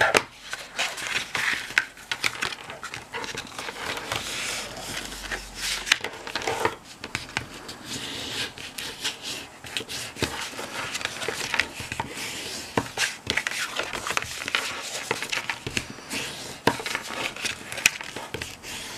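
A bone folder scraping along folds in white cardstock as the score lines are burnished, in irregular rubbing strokes with rustling card and occasional sharp clicks.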